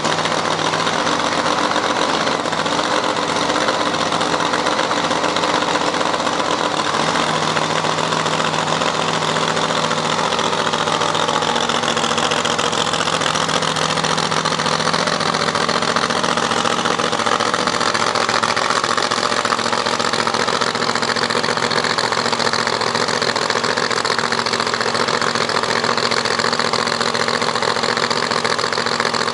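Supercharged funny car engine idling steadily, its note shifting slightly a couple of times.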